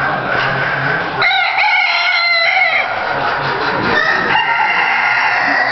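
Roosters crowing: one long crow about a second in and another starting near the end, over a steady background din of the poultry hall.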